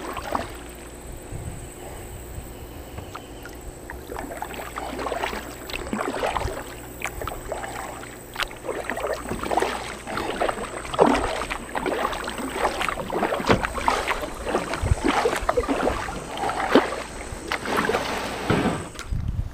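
Double-bladed kayak paddle dipping and splashing in lake water, stroke after stroke on alternating sides. The splashing grows louder and busier about four seconds in.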